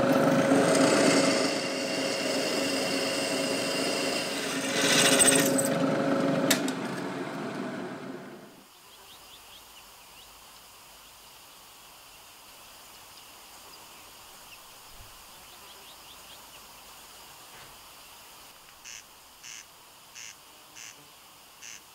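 Drill press boring through the steel of a hand-forged hook: the motor runs steadily with the bit cutting, louder for a moment about five seconds in, then the machine stops after about eight seconds. Faint quiet background follows, with a few short high chirps near the end.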